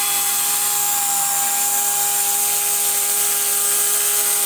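Blade 130X electric RC helicopter in flight: its brushless motor and spinning rotors give a steady high whine, with a slight dip in pitch about a second in.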